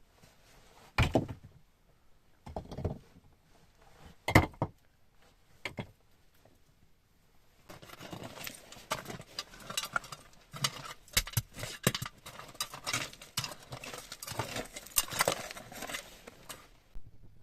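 Handling sounds: four separate knocks a second or two apart, then about nine seconds of dense clattering and rustling that stops suddenly.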